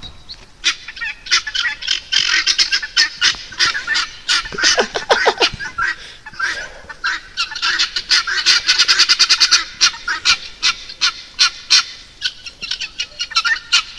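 A flock of birds calling in rapid, repeated short calls, with thicker runs of calls twice.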